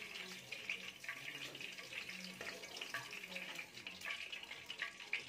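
Hot oil sizzling with fine crackling in a pan after a first fry of potato fries, with a few light taps of a steel slotted spoon against a steel plate.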